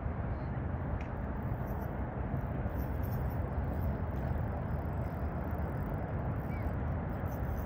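Steady low rumble of wind buffeting the microphone outdoors, with no distinct events standing out.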